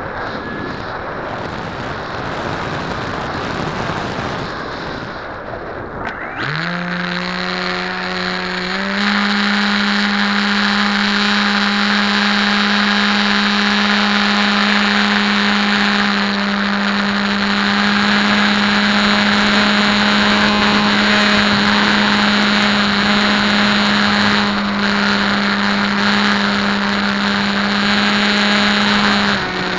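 Wind rushing over the onboard camera's microphone as the Bixler glides. About six seconds in, its brushless electric motor and pusher propeller spool up into a steady whine, step up to a higher throttle a few seconds later, and ease back slightly near the end.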